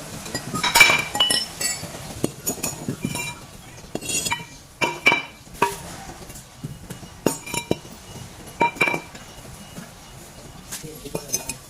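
Metal tools and brake parts clinking and knocking against each other during a brake rotor replacement: irregular sharp strikes that ring briefly, the loudest about a second in.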